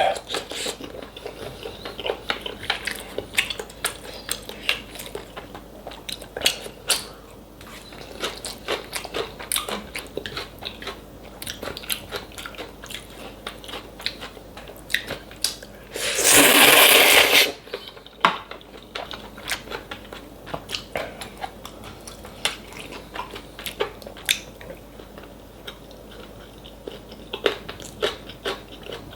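Close-miked chewing and crunching of food, with many short crisp bites. Just past halfway there is one loud slurp lasting about a second.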